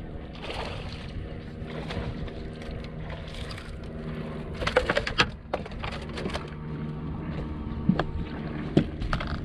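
A bass hooked on a flipping rod is fought at the surface beside a bass boat: a burst of splashing about five seconds in, then two sharp knocks near the end as the fish comes over onto the deck. A steady low hum runs underneath.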